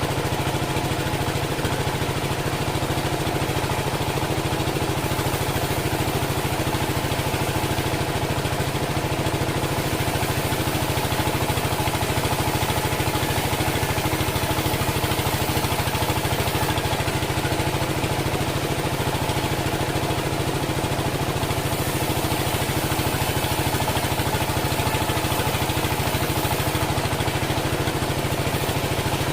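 Engine of a homemade bandsaw sawmill running steadily at a constant speed.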